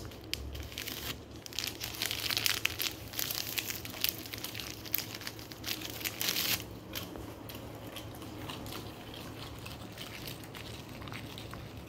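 Crinkly plastic snack packet crackling as dogs bite and crunch the dried cuttlefish snack held in it, busiest in the first half and settling down after about seven seconds.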